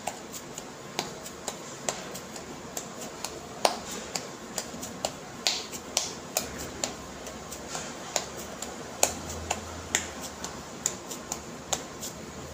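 Irregular small sharp clicks and taps, about two or three a second, from hands working at the kitchen counter while pressing and shaping stuffed paratha dough.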